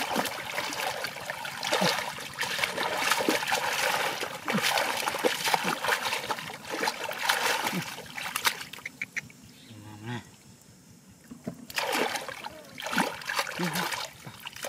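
Shallow muddy water splashing and sloshing as two hands churn and grope through it, feeling for fish. The splashing dies down a little after the middle, then picks up again near the end.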